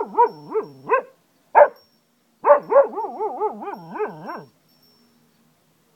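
Cocker spaniel howling, its pitch wavering up and down several times a second. A first howl ends about a second in, a short single cry follows, and a second long wavering howl stops a little over four seconds in.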